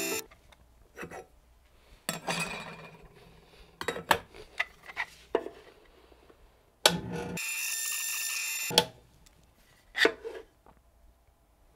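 Square high-speed-steel graver blank, held in an angled sharpening block, being ground on a powered diamond-disk hone at finer grits. Scattered clicks and clacks come from the block and tool being handled, with a short scraping burst about two seconds in. A steady grinding hiss lasts about a second and a half, a little past the middle.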